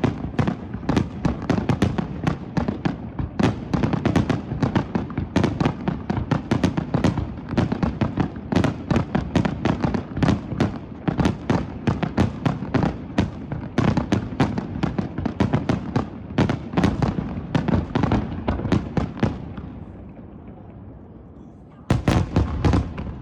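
Fireworks display going off in a dense barrage, many sharp bangs a second with a rumbling tail. About twenty seconds in it dies away to a fading rumble, then a fresh barrage starts suddenly near the end.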